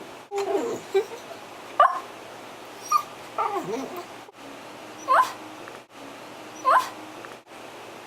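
Miniature dachshund 'talking': a string of short whines and yips, about seven in all, some sliding down in pitch and others sharply rising, with brief pauses between them.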